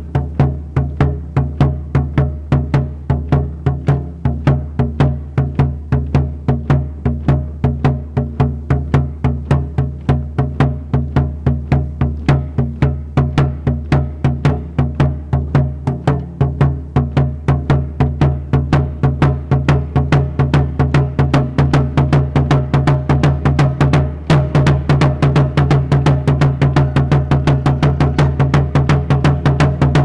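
Large skin-headed drum beaten with a wooden stick in a steady beat of about three strokes a second, its deep tone ringing on between strokes. About six seconds before the end the beat quickens and grows louder.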